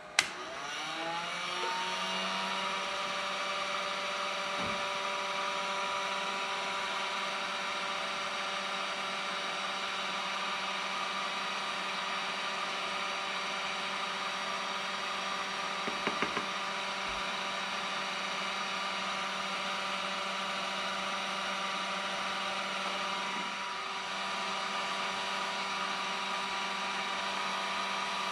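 Heat gun switched up with a click, its fan motor spinning up over about two seconds and then running steadily at its higher setting. A few light clicks about sixteen seconds in.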